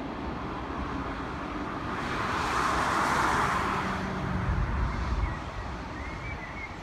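Low rumble of a freight train of tank wagons moving away. Over it, the noise of a passing vehicle swells and fades in the middle.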